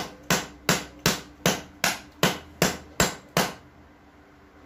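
Repeated hard blows smashing a USB Type-C charger cable against a tiled concrete floor: about ten sharp strikes, roughly two and a half a second, stopping about three and a half seconds in.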